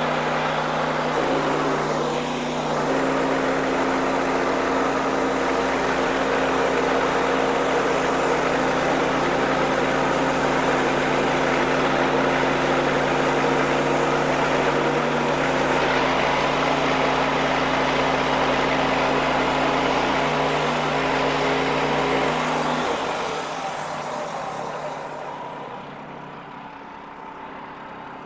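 Wood-Mizer LX55 band sawmill running under load, its band blade cutting through a hard hickory log with a steady engine note over the noise of the cut. About 23 seconds in, the engine note drops away and the sound falls off to a much quieter running.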